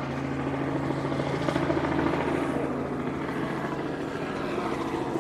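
Helicopter circling overhead: a steady engine drone with a fast rotor beat.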